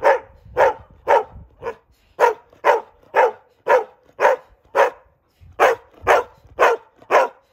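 A dog barking over and over in a steady rhythm, about two barks a second, with a short pause about five seconds in.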